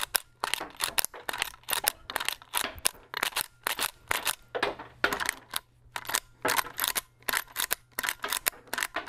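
Rossi R92 lever-action rifle being cycled by hand, its lever and bolt clacking in a quick run of metallic clicks, several a second, as unfired .357 Magnum cartridges feed from the tube magazine and are ejected. It is feeding and ejecting properly, the sign that the fixed loading gate and magazine now work.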